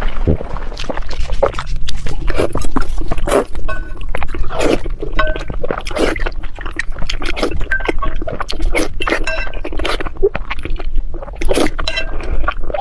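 Close-miked eating: a dense run of wet bites and chewing crackles, with utensils clinking against a dish now and then.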